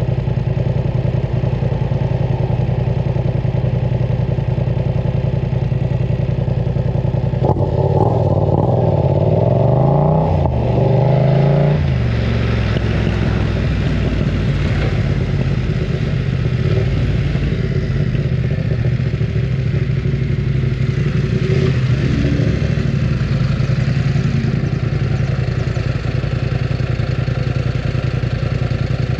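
BMW F900 R motorcycle's parallel-twin engine running loud and steady. About eight seconds in the revs climb twice, with a short dip between, then drop back to an even drone.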